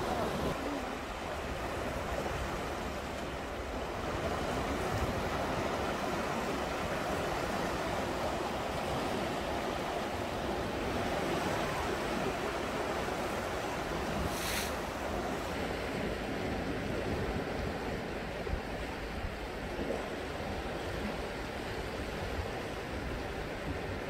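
Sea waves washing and swirling around dark volcanic shore rocks, a steady surf noise, with a short high hiss about halfway through.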